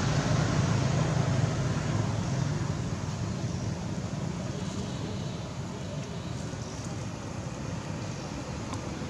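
Steady low outdoor background rumble, a little louder for the first few seconds and then easing off.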